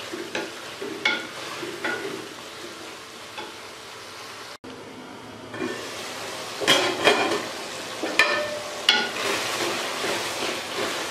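Chicken and potato curry base frying and sizzling in an aluminium pot, at the bhuna stage of cooking until the potatoes soften, while a wooden spatula stirs and scrapes through it. In the second half the spatula knocks sharply against the pot several times.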